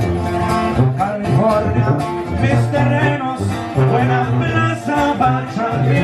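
Spanish-language Latin song playing as background music: a singer over guitar and a strong bass line.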